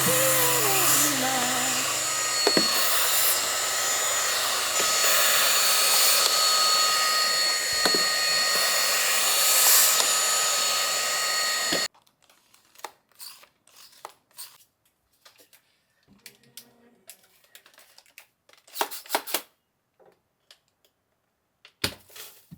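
A small high-speed electric motor and fan running steadily, a rush of air with a high whine, cut off suddenly about twelve seconds in. After it, only scattered faint clicks and handling sounds.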